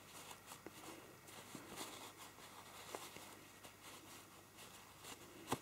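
Faint rustling and small handling ticks of a small padded fabric coin purse being turned right side out by hand, with a slightly sharper tick near the end.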